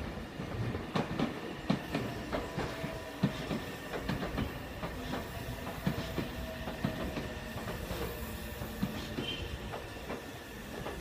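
Meitetsu electric commuter train running into the station, its wheels clicking over the rail joints, with a faint electric whine that slowly falls in pitch as it brakes.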